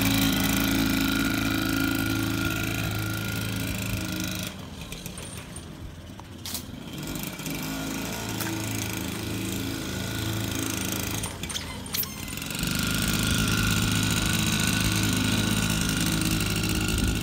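Honda Express NC50 moped's small two-stroke single-cylinder engine running steadily as it is ridden. It is quieter for several seconds in the middle and louder again near the end.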